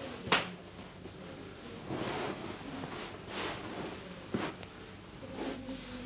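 Hands rubbing and rustling over skin or cloth during a massage, in a few soft strokes. There is a sharp click just after the start and a smaller one about four seconds in.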